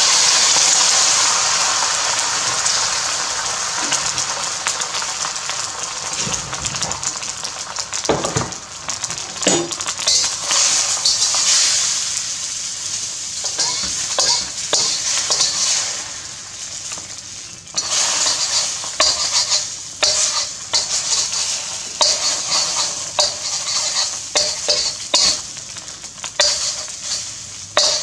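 Beaten egg sizzling in hot oil in a steel wok, loud at first and slowly fading. From about a third of the way in, a metal slotted spatula scrapes and clacks against the wok as the egg is scrambled, with the strokes coming thick and fast in the last ten seconds.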